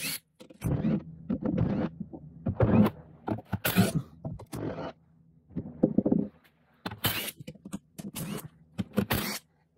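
A cordless DeWalt drill-driver run in short bursts, about nine in all, zipping out the case bolts of an NP242 transfer case.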